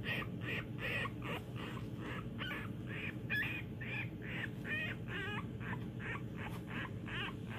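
Newborn corgi puppy squeaking and crying in a rapid string of short, high calls, about three a second, some with a wavering pitch. A steady low hum runs underneath.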